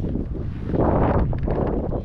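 Wind buffeting the microphone, a steady low rumble that swells louder for a moment about a second in.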